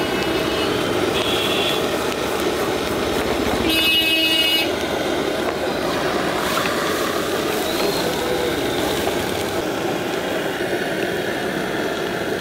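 Street traffic noise with a vehicle horn honking once for about a second, a little before four seconds in, and a shorter, fainter toot about a second in.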